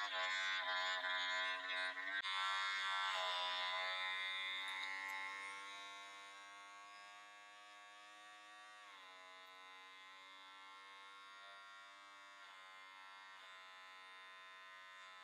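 Electric hair clipper buzzing steadily as it cuts hair at the nape of the neck. It is louder for the first five seconds or so, then fainter, with a slight change in pitch about two seconds in and again about nine seconds in.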